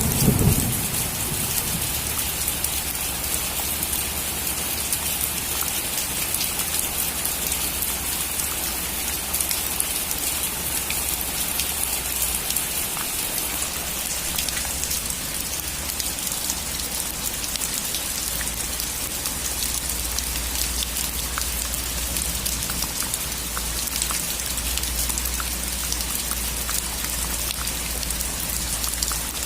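Steady heavy rain falling on a roof, an even hiss with individual drops ticking sharply. At the very start, a thunder rumble dies away.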